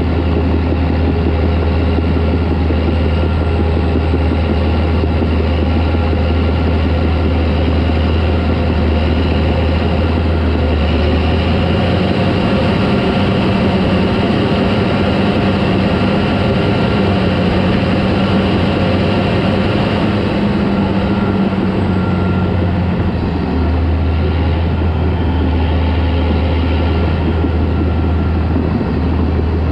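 Caterpillar D4 crawler tractor's diesel engine running steadily. Its note changes for about ten seconds in the middle, then settles back to the first note.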